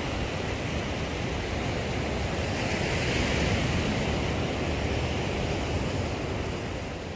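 Sea surf breaking and washing up a sandy beach: a steady rushing wash that swells a little midway and eases near the end.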